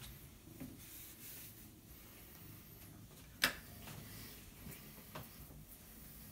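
Faint rustling of a cat's fur and a fleece jacket brushing close to the microphone, with one sharp click about three and a half seconds in.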